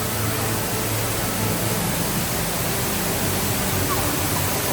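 Steady rush of Ruby Falls, an underground waterfall, pouring into its pool inside the cave.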